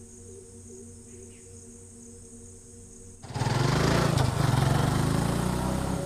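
Faint steady music and insects, then about three seconds in a motorcycle engine comes in suddenly loud as the bike passes close by and rides away.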